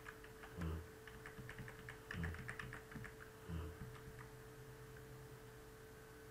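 Computer keyboard keys clicking, a quick run of taps about a second and a half in, with a few soft low thumps and a faint steady hum underneath.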